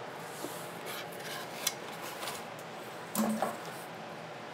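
Cardboard box flaps and foam packing rubbing and scraping as they are handled and folded back, with a few light taps and one louder brief scrape a little past three seconds in.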